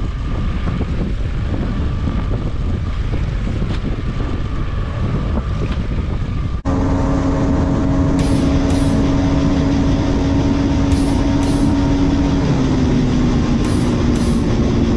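Boat motor running with wind on the microphone. About six and a half seconds in it cuts sharply to a louder, steady sound with several held tones that step down in pitch near the end.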